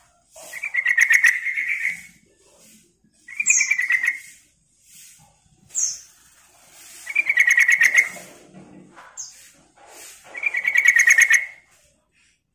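Yellow-vented bulbul singing: four loud, bubbling, rapidly pulsed song phrases about three seconds apart, each with a short high note just before it.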